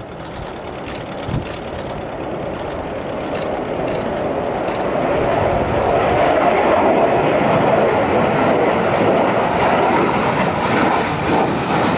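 Jet noise of a J-10 fighter climbing out after takeoff. It grows louder over the first five or six seconds and then holds steady and loud.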